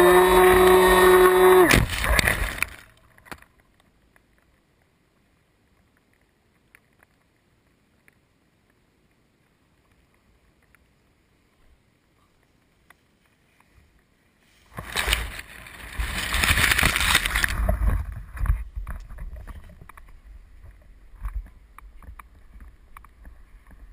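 Small FPV flying wing's motor and propeller whining at a steady pitch, cutting off about two seconds in. Near silence follows, then a few seconds of loud rustling and handling noise as the plane is picked up out of the grass, fading into faint knocks.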